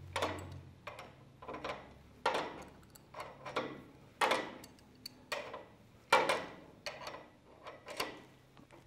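Steel wrench clicking against a steel pipe-thread hydraulic fitting as the fitting is tightened down, about a dozen short metallic clicks at uneven intervals of half a second to a second.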